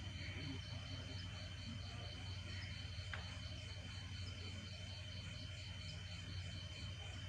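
Night insects, crickets, chirping: a steady high trill with a regular pulsing chirp about three times a second, over a low steady hum. A single short click comes a little after three seconds in.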